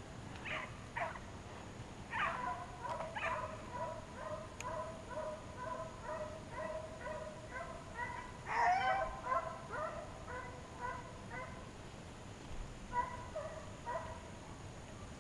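Deer hounds barking in a quick, steady series, about two barks a second, as they run a deer on a dog drive. The barking breaks off briefly near the end, then picks up again.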